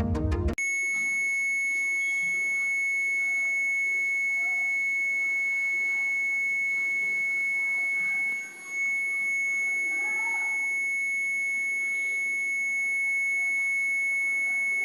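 Dell laptop giving one long, continuous high-pitched beep during startup, steady in pitch, with a brief dip in level a little past eight seconds in. It is the startup warning beep that the owner says could come from a faulty battery, a shorted keyboard key or RAM not seated properly.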